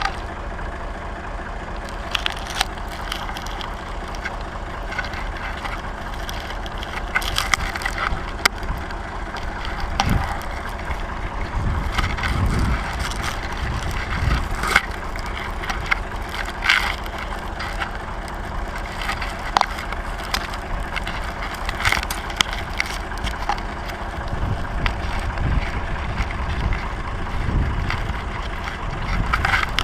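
Massey Ferguson 135 tractor engine running steadily under way, with frequent sharp rattles and knocks from the moving tractor and towed baler.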